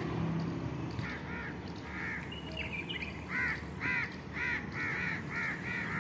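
Birds calling: a few short calls about a second in, then a quick run of short, repeated calls, about three a second, from about three seconds in.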